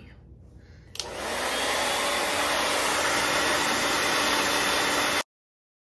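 A hand-held hair dryer switches on with a click about a second in and runs steadily with a faint hum, then cuts off suddenly.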